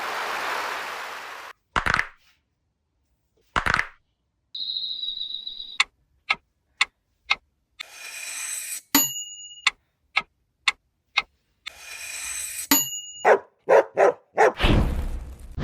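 A string of short edited-in sound effects, one after another: a whoosh, two sharp knocks, a steady beep, runs of evenly spaced ticks about two a second, swells ending in ringing dings, a quick flurry of pops, and a low rumbling whoosh near the end.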